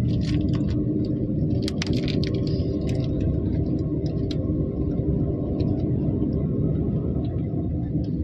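Inside the cabin of a Renault Triber climbing a hill road: its 1.0-litre three-cylinder engine and the tyres make a steady rumble. A few light clicks come in the first three seconds.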